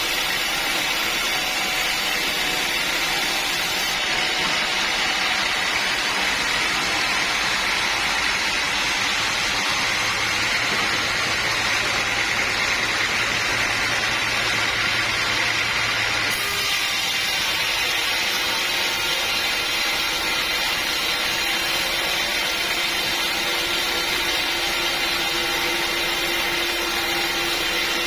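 Sawmill saw running steadily under load, a constant loud machine noise with a high, rasping edge.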